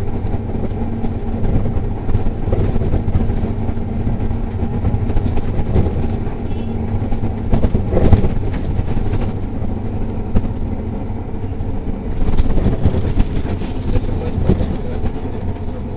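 Cabin noise of a Neoplan city bus under way: a steady low drone of the engine and tyres, with knocks and rattles. A steady hum drops away about halfway through, with a few knocks around then.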